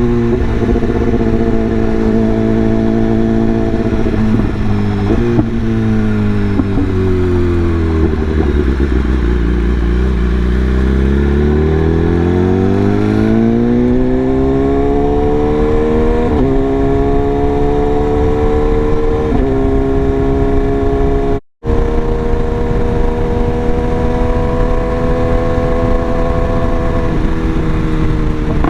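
BMW S1000RR inline-four engine under way. The engine note drops as the bike slows, with a few short blips on the downshifts, then climbs back as it accelerates, shifting twice with the quickshifter, and settles into a steady cruise. The sound cuts out briefly about two-thirds of the way in.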